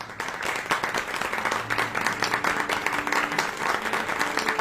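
A group of people applauding, many overlapping claps that start all at once and keep going steadily.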